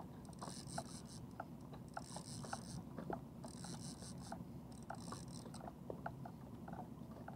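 Fishing reel being cranked to bring in a hooked striped bass: a faint rhythmic clicking of the reel's gears, with a hiss that swells about every second and a half.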